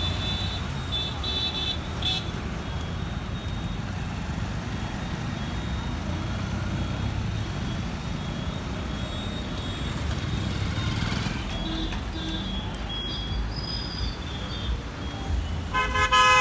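Road traffic at a busy intersection: the engines of cars, scooters and motorcycles passing make a steady low rumble, with short vehicle horn toots near the start and a loud horn blast near the end.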